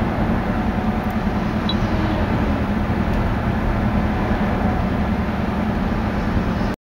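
Steady road and engine noise heard inside a moving car, cutting off suddenly near the end.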